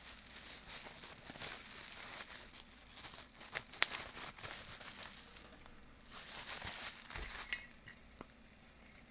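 Plastic and cardboard packaging crinkling and rustling as it is handled, with a few sharp clicks about four seconds in.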